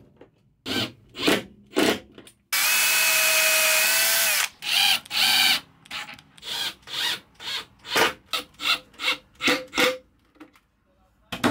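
Cordless drill-driver driving screws into wooden trim: a few short bursts, a steady run of about two seconds, then a string of short trigger pulses about three a second.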